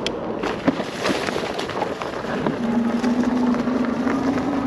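Fat-tyre e-bike rolling over a leaf-covered forest path: steady tyre rumble with scattered crackles and knocks. A steady low hum from the bike sets in about two and a half seconds in.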